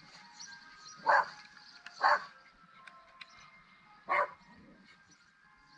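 Small dog barking: three short, sharp barks, the first two about a second apart and the third after a gap of two seconds.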